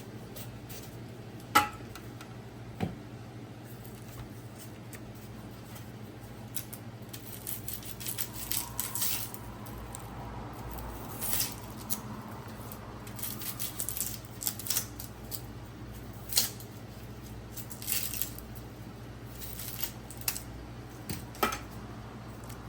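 Kitchen utensils being handled during food preparation: scattered clicks, knocks and short scrapes of tools against cookware or a board, the loudest knock about one and a half seconds in, over a steady low hum.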